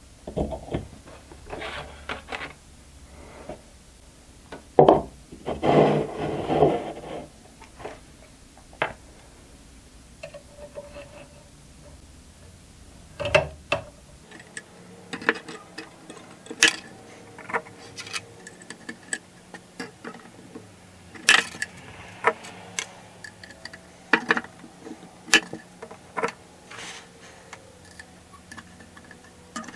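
Hand-tool work on ukulele fret wire: irregular sharp taps and clicks of metal against wood, with a stretch of rubbing about six seconds in.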